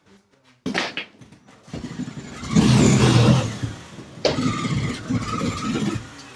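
Demolition noise from wall material being torn out: sharp knocks and a loud stretch of crunching and scraping, uneven and irregular.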